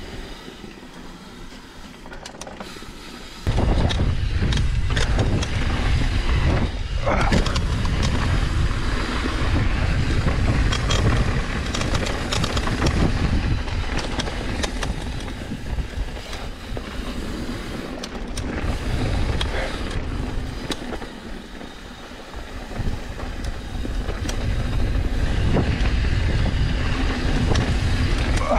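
Mountain bike descending a dirt trail: wind buffets the camera microphone, and the tyres run over dirt while the bike clicks and rattles over bumps. The wind rumble jumps up sharply about three and a half seconds in, eases briefly near the end, then builds again.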